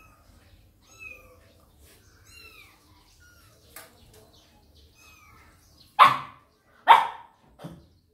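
A puppy barks three times about six seconds in, the first two loud and the third softer. Before that, faint high calls that fall in pitch come every second or so.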